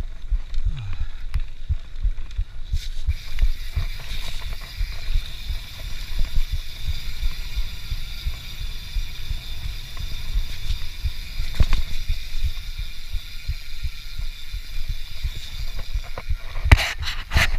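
YT Capra mountain bike rolling over a dirt trail: a constant run of low thuds and rattles as the bike bumps over the ground, over a steady hiss. A burst of louder, sharper clatter comes near the end.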